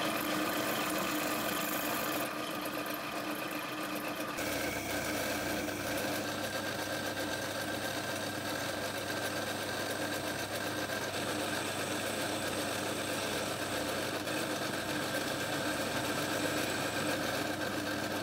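Machine tools running steadily: first a bit drilling into a small knurled metal nut clamped in a vise, then, from about four seconds in, a metal lathe spinning a small part while the cutting tool shaves off curled chips.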